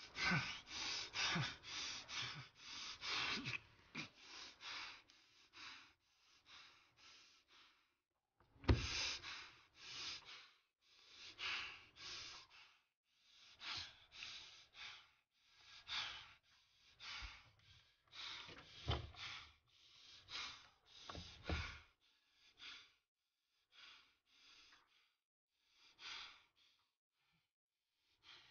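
A person breathing heavily in short, noisy breaths and gasps, about one or two a second, some with a little voice in them. The breaths grow sparser and fainter near the end.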